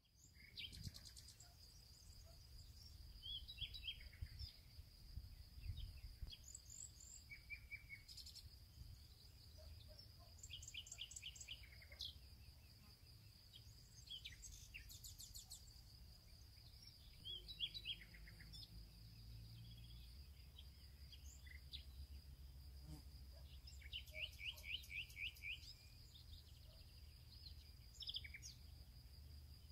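Faint meadow ambience: wild songbirds giving scattered short chirps and quick trills, one rapid run of notes a little past the middle, over a steady high thin whine and a low rumble.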